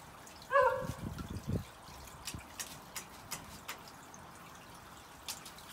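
Pool filter's cascade trickling steadily into a kiddie pool, with dripping and sloshing as a husky wades and dips her head under the water. A brief high vocal sound comes about half a second in.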